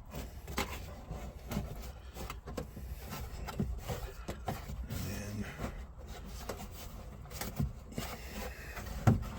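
Glove box liner being worked into the dash opening: irregular rubbing and scraping with scattered light knocks as it bumps against the dash brace.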